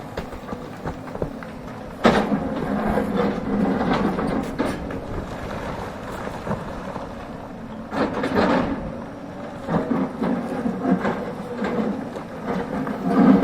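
Hidromek hydraulic excavator's diesel engine running and working, swelling louder under hydraulic load about two seconds in, again near the middle and near the end, with scattered knocks.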